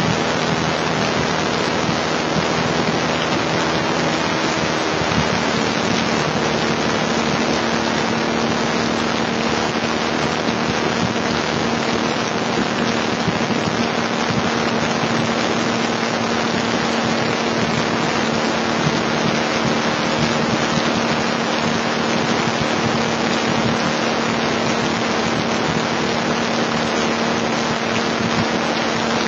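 Beechcraft Bonanza A36's six-cylinder piston engine and propeller running steadily, heard from inside the cabin as a loud, even noise with a steady low hum.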